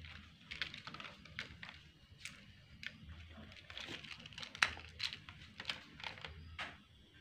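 Kittens playing in a plastic laundry basket: irregular light clicks, scratches and rustles of their claws and small toys against the plastic mesh.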